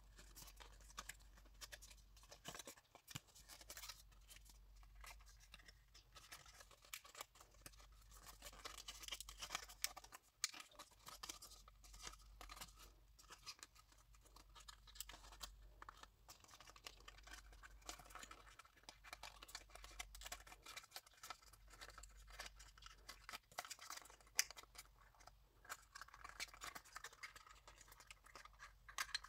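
Thin printed card being pressed out of a die-cut sheet and folded by hand: faint, irregular rustling, scratching and small crisp clicks of paper, over a faint low hum.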